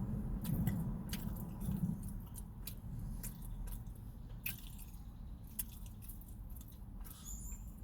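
A person chewing a mouthful of fast-food sandwich close to the microphone, with irregular wet mouth clicks over a low, steady rumble.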